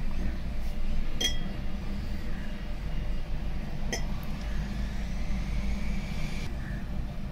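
Two light clinks of a drinking glass being handled, about a second in and again about four seconds in, each ringing briefly. A steady low hum runs underneath.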